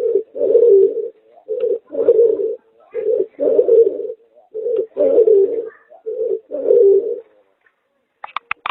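Pigeon–collared dove hybrid cooing in a regular rhythm, each coo a short note followed by a longer low one, five times over. After a short pause, a quick run of sharp taps near the end.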